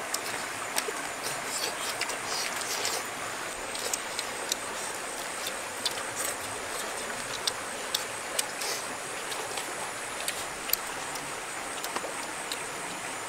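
Steady rushing of flowing river water, with scattered light clicks and crackles over it.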